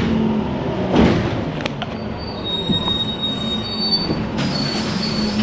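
A city bus riding along, heard from inside: steady running and road noise with a knock about a second in. Thin high-pitched squealing tones join about halfway through.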